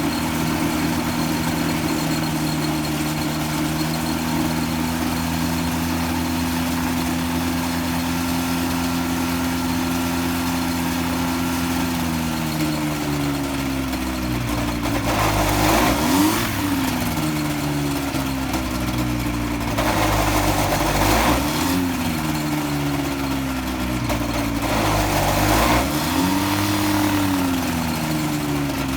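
Freshly rebuilt Rotax 503 two-cylinder two-stroke engine running on its break-in test, holding a steady speed at first. From about twelve seconds in, its speed wavers up and down, with three short revs.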